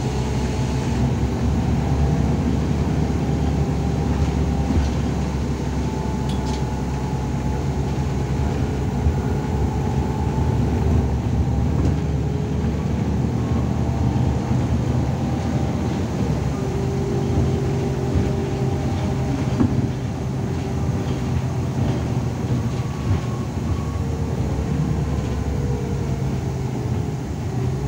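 Cabin noise of a moving Irisbus Citelis 12 m city bus: the engine and tyres make a steady rumble, with several whining tones over it, one of which slides down in pitch near the end.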